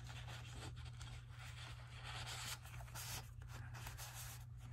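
Faint rustling and rubbing of paper and card as a tag is handled and slid into a junk journal page, over a steady low hum.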